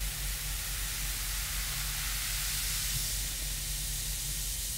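A bath bomb fizzing as it dissolves in a bowl of water, giving off a steady, even hiss.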